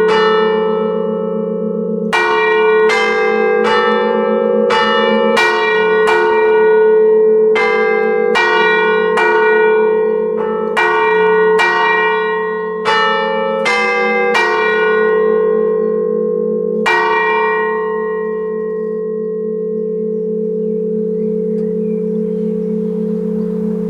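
Church bells chimed on an Ellacombe apparatus, with hammers striking the hanging bells in turn at a little faster than one stroke a second. The strokes stop about 17 seconds in, and the bells' hum then rings on and slowly dies away.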